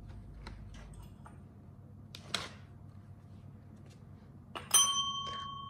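A few faint clicks and a short rustle, then near the end a tap bell is struck once, giving a sharp strike and a clear ringing tone that fades slowly. The ring is the training signal that a treat is coming.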